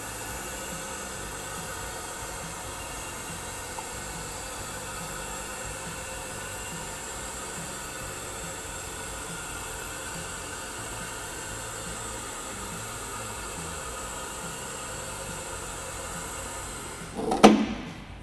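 Two-post vehicle lift lowering: a steady hiss with faint steady tones, ending about a second before the end in a loud clunk, after which the hiss stops.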